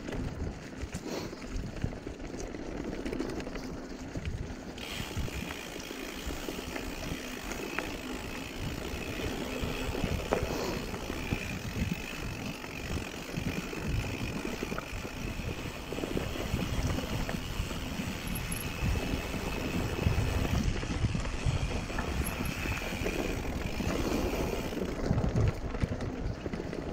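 Mountain bike riding down a rough dirt singletrack: the tyres roll over earth, leaves and stones, and the bike jolts and rattles with uneven knocks. A steady high buzz runs through most of the stretch.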